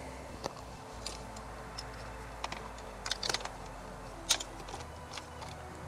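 Scattered small clicks and light taps of a motorcycle's plastic wiring connectors and cable being handled, the sharpest about four seconds in.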